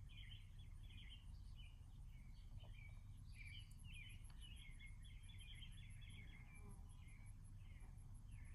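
A songbird singing a busy run of quick chirps and warbles, faint against a steady low background rumble, with an insect giving a faint, high, evenly repeated chirp.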